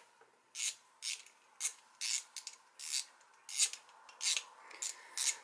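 A 2 mm hex key turning the small grub screws in a Hope Tech 3 Duo brake lever body in short repeated strokes. It makes a series of brief scratchy metal rasps, about two a second.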